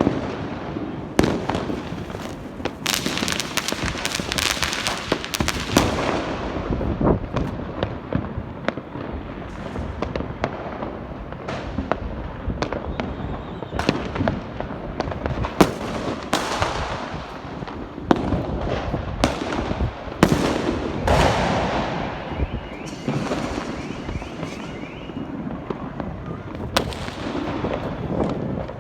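Diwali fireworks and firecrackers going off in many places at once: steady crackling with many sharp bangs at irregular intervals, overlapping one another.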